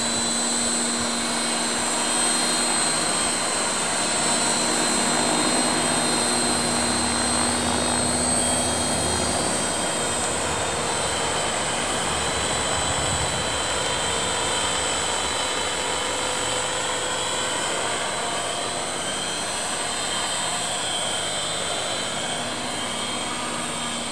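CopterX 500 SE electric RC helicopter in flight: a steady high whine from its motor and rotor head over the rush of the spinning blades. Wind noise sounds on the microphone.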